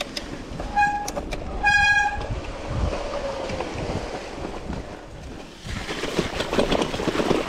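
Mountain bike descending a dirt trail: two short, high brake squeals about a second apart, over the rumble of tyres on dirt. Near the end the noise grows louder and rougher as the bike rolls through a shallow, rocky creek crossing.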